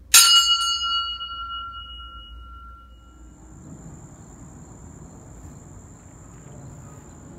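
A cymbal on a drum kit struck once, sharp, then ringing out in several clear tones that fade over about three seconds. After that, a steady high insect drone over faint outdoor background noise.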